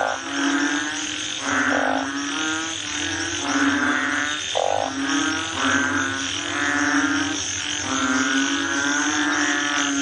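A frog croaking over and over: low, droning, buzzy calls repeated in a steady rhythm with barely a break.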